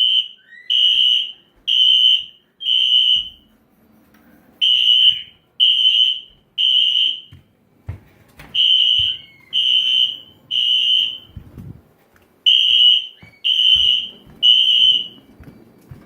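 System Sensor i4 series combination smoke and CO detector's sounder beeping loudly in the three-beep temporal fire-alarm pattern: three high-pitched beeps, a pause, then three again, over and over. It is in alarm after being set off by aerosol smoke-test spray.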